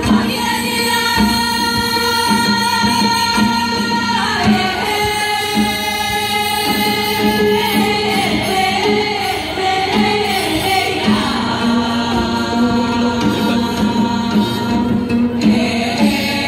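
A large group of singers performing as a choir, holding long sung notes, with janggu drums accompanying.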